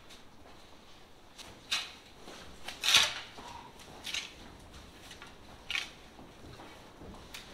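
A long-handled farm tool scraping and pushing silage across a concrete floor in a cattle shed: about five short, sharp scrapes a second or so apart, the loudest about three seconds in.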